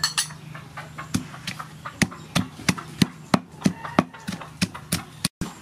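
Long wooden pestle pounding garlic in a large wooden mortar: a steady run of dull knocks, about three a second.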